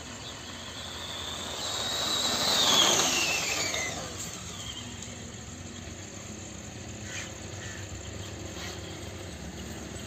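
A motor vehicle passes close by: its sound swells to a peak about three seconds in and then fades, with a high whine that drops in pitch as it goes past. A steady low engine sound continues afterwards.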